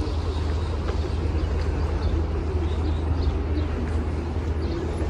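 Outdoor city ambience: a steady low rumble of wind on the microphone and distant traffic, with a few faint high chirps.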